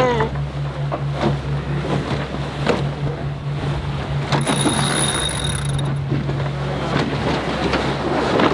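Sailboat under way at speed: wind and rushing water, with a steady low hum beneath and a few sharp knocks. A thin high whistle sounds for about a second and a half midway.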